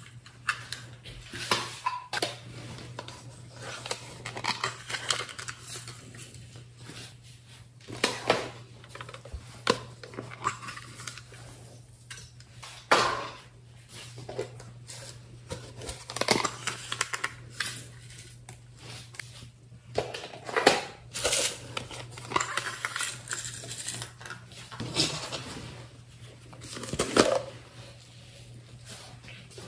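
Small plastic containers clacking and tapping against a glass baking dish as sequins and glitter are shaken out onto slime: irregular sharp clicks and knocks, over a low steady hum.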